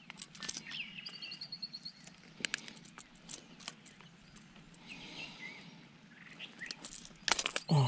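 Scattered close clicks and taps from needle-nose pliers working a hook out of a small largemouth bass's mouth, with a louder cluster of clicks near the end. A bird's short, rapid trill comes about a second in.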